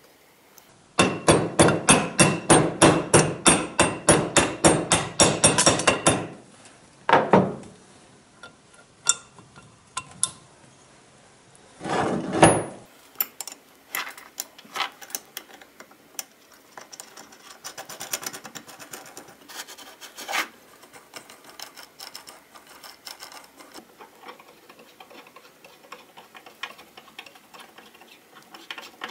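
Screwdriver and metal parts working on a cast-iron No. 4 bench plane during reassembly: a fast, even run of sharp clicks, about five a second for some five seconds, then a couple of louder knocks and scattered small clicks and handling noises.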